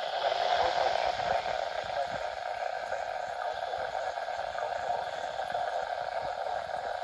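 Weather radio receiver hissing with steady static from a weak, poor signal on a NOAA Weather Radio broadcast.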